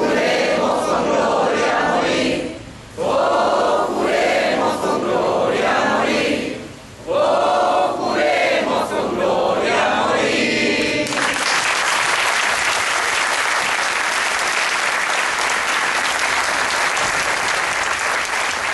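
A crowd singing together in three long phrases, then breaking into sustained applause about eleven seconds in.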